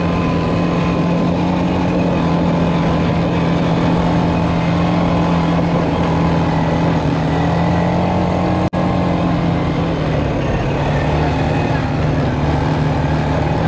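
ATV engine running at a steady trail-riding speed, its pitch easing slightly about ten seconds in. The sound drops out briefly just before.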